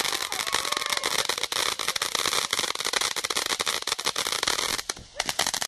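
Fireworks crackling: a dense, rapid run of sharp cracks and pops that thins out near the end and stops abruptly.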